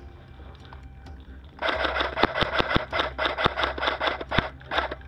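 Airsoft rifle firing full-auto: a rapid mechanical clatter starting about a second and a half in and running for about three seconds, then a short second burst near the end.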